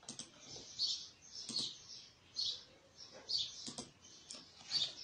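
A small bird chirping repeatedly, a short high chirp about every half second to a second, with a few sharp mouse clicks among them.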